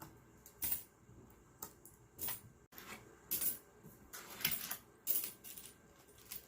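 Loose coins clinking as they are counted by hand: a string of short metallic clinks, roughly one every half second, some in quick pairs.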